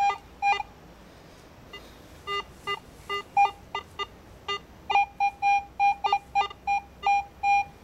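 Metal detector giving target tones as its coil is swept: a run of short, high-pitched beeps, with a few lower-pitched beeps mixed in around the middle and a pause of about a second and a half early on. It is signalling a metal target still in or near the hole.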